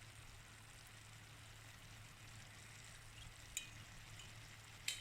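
Near silence: a faint steady low hum, with two light clicks late on.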